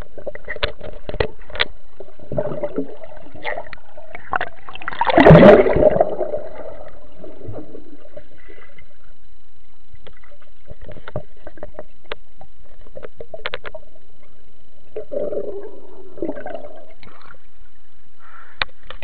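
Water sloshing and gurgling around a sports camera's waterproof housing as it goes in and out of the water, with scattered sharp clicks and knocks on the housing. A much louder splash comes about five seconds in.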